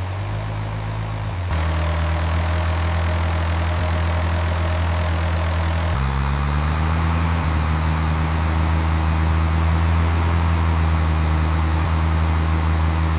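An engine running steadily, its pitch rising about six seconds in.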